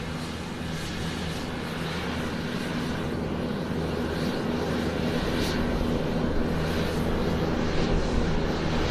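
Airplane taxiing, its engines running with a steady low hum under a rushing noise, growing gradually louder.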